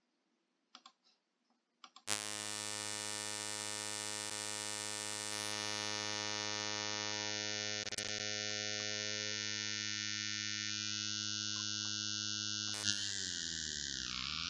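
Browser synthesizer tone: a low, buzzy sustained note rich in harmonics starts about two seconds in, after a few faint clicks. Its timbre shifts as a drawn frequency filter cuts and restores groups of harmonics. Near the end the pitch slides down and back up.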